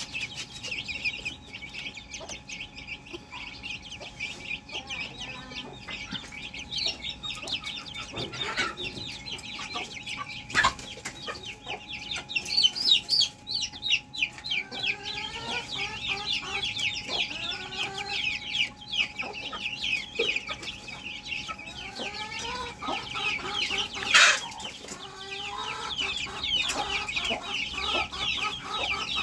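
Young chickens clucking in a coop: short low clucks that come in quick repeated runs from about halfway through, over a constant chorus of high, rapid peeping. A single sharp knock stands out near the end.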